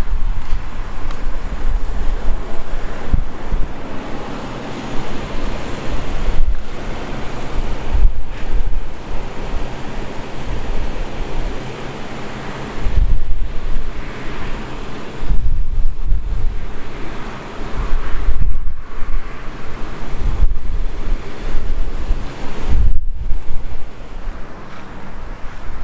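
Gusty wind buffeting the microphone: a steady rush with rumbling gusts, broken by a few brief drops in level.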